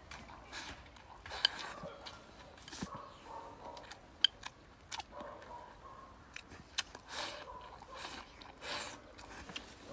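Close-up eating sounds of someone shovelling rice and stir-fry from a bowl with chopsticks: irregular slurping, smacking and chewing, with a few sharp clicks, the loudest about one and a half and four seconds in.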